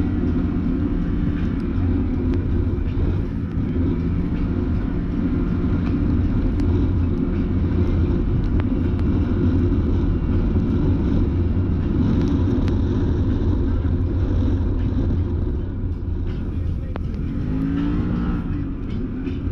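Can-Am Maverick Sport X mr side-by-side driving on a trail, its engine running steadily under load, with scattered knocks. Near the end the revs rise and fall a few times.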